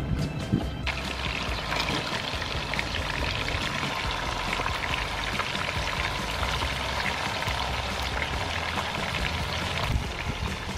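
Chicken wings frying in hot soybean oil in a pan: a steady sizzle with fine crackling that starts abruptly about a second in.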